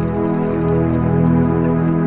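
Background music: soft, slow ambient music with sustained chords.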